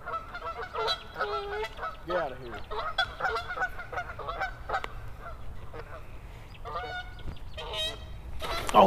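Geese honking: a rapid string of short calls for about five seconds, a brief pause, then more honks near the end.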